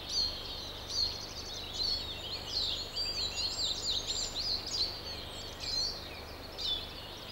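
Several songbirds singing at once, a chorus of quick, overlapping high chirps and trills.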